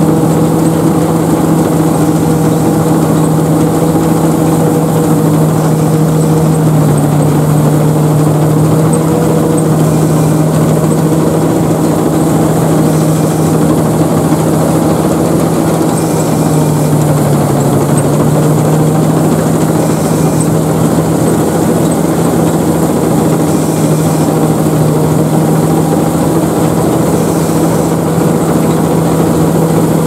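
Sakpattana KM-D No.2 rice combine harvester running steadily under load while cutting and feeding rice: its 220 hp turbo diesel engine drones with a steady hum, along with the clatter of the reel, auger and threshing drive. The pitch sags slightly a few times as the load changes.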